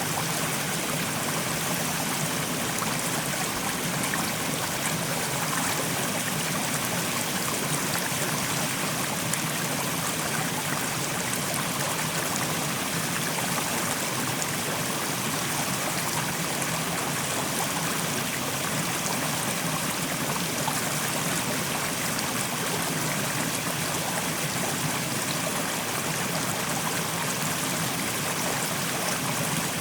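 Fast-flowing mountain stream rushing over rocks: a steady, even rush of water with no pauses.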